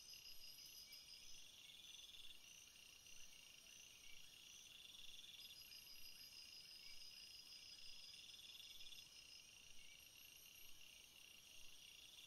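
Faint, high-pitched insect trilling: several insects chirp at once in overlapping pulsed runs, each a second or two long.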